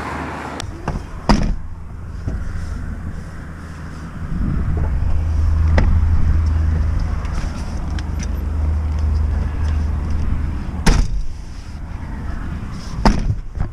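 Camper van cab door being handled: several sharp clicks and knocks from the outside handle and latch, the loudest about eleven seconds in, over a steady low rumble. The door lock is damaged and the door can no longer be locked.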